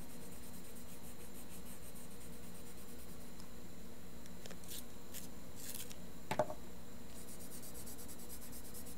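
Brown colored pencil scribbling on drawing paper in quick, rhythmic scratchy strokes, pausing in the middle. A short light knock about six seconds in.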